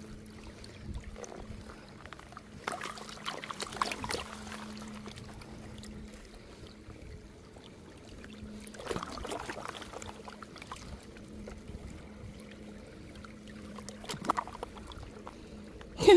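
Water sloshing and pouring off a plastic gold pan as it is dipped and swirled in a stream to wash gravel out, in several bouts, over a faint steady low hum.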